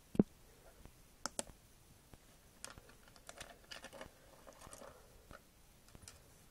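Hard LEGO plastic parts clicking and tapping as they are handled: a dull thump just after the start, two sharp clicks a little over a second in, then a cluster of light clicks and rattles.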